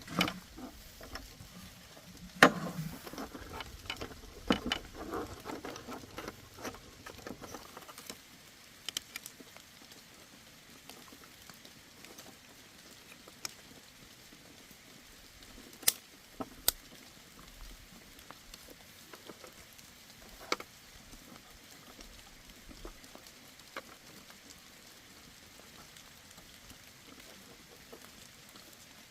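Small clicks, taps and rattles of parts and tools being handled in hand repair work, busy for the first several seconds with one sharp knock early on, then only occasional single clicks.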